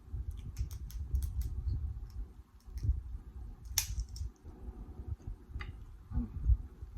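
Chewing lobster tail meat, with low wet mouth sounds and scattered small clicks, one sharper click about four seconds in.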